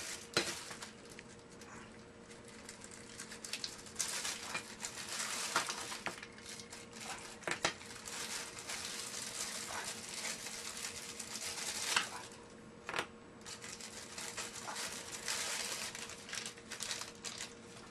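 Plastic packaging bags crinkling and rustling as the parts of a satellite dish scalar kit are unwrapped by hand, with scattered light knocks as pieces are set down on the table.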